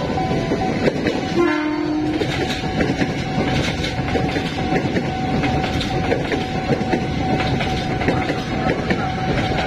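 Train passing close by, its wheels clattering over the rail joints in a steady run of knocks, with a short horn blast about a second and a half in. A steady high warning tone from the level crossing's siren sounds throughout.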